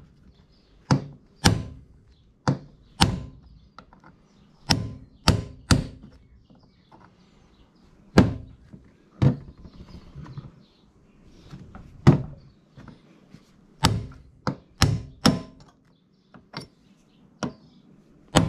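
Repeated sharp hammer blows knocking a steel shaft out through the body of a sewing machine, about seventeen strikes at an irregular pace, often in quick pairs or threes with pauses between.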